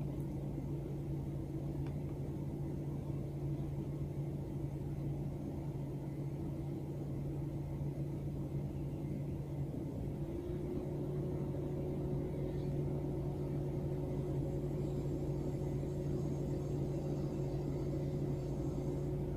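Steady low hum of a stopped car's idling engine and cabin, heard from inside the car; a second, higher steady tone joins about halfway through.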